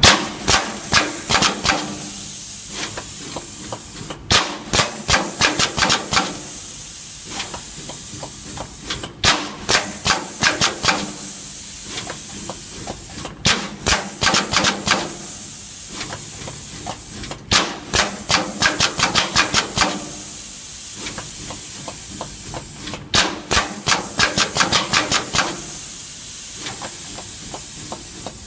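Automatic through-hole component insertion machine cycling: bursts of rapid sharp clicks, several a second for about two seconds, recurring every four to five seconds, as the head inserts parts into the board. A steady hiss runs between the bursts.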